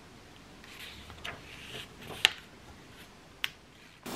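Hardcover book pages being handled and turned: faint paper rustling with three sharp clicks, the loudest a little past halfway.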